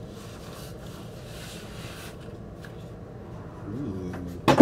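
Cardboard and paper rustling and sliding as a vinyl LP is pulled out of its cardboard mailer, then a sharp loud knock near the end.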